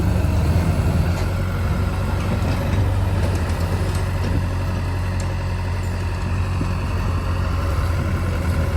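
Heavy diesel engine of earthmoving machinery running steadily at a low, even pitch.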